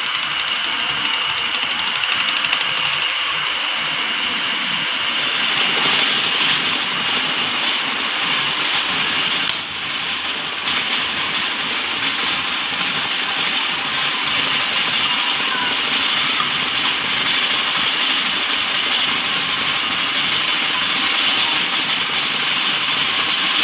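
Automatic lathe running steadily, a continuous mechanical machine noise.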